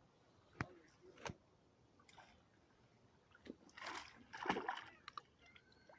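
Faint splash and slosh of lake water about four seconds in, lasting about a second, preceded by two sharp clicks.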